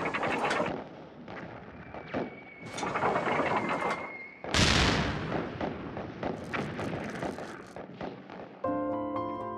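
Battle sound effects: a crackle of rifle and machine-gun fire with a thin whistle for about two seconds, then a heavy artillery explosion about halfway through that rumbles away under more shots. Near the end, plucked-string music comes in.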